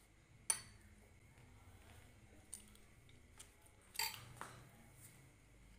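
A quiet room with a few brief, faint clicks and taps: a sharp one about half a second in, a couple of small ones, and a short cluster about four seconds in.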